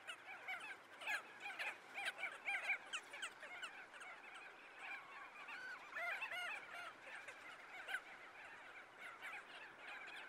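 A flock of birds calling: many short, overlapping calls throughout, with a louder run of calls about six seconds in.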